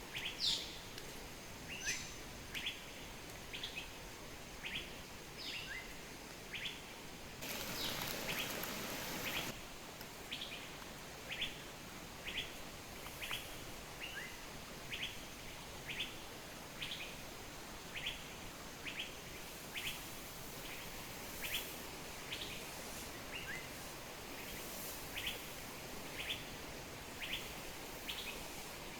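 A bird repeating a short, high chirp over and over, a little faster than once a second, over a steady faint background hiss. About eight seconds in there is a two-second rush of louder noise.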